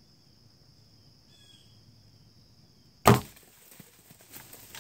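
Hoyt Carbon Spyder compound bow fired about three seconds in: one loud, sharp crack of the shot as the arrow is sent into a buck standing straight below, dying away quickly. Scattered rustling and crunching in dry leaves follows as the deer bolts, over a steady high insect buzz.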